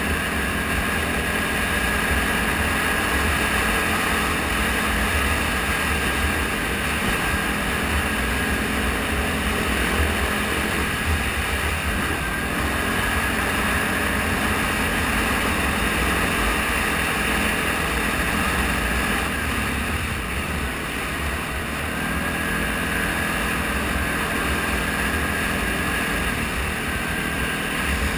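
ATV engine running steadily while riding along a gravel road, with low rumbling wind and road noise on the camera mic. About two-thirds of the way through, the engine eases off briefly and then picks up again.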